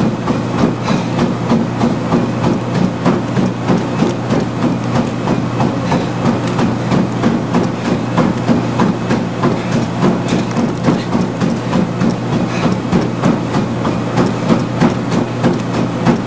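Treadmill belt running at a 6-minute-mile pace, its motor humming steadily under the rhythmic thud of running footfalls on the belt, about three steps a second.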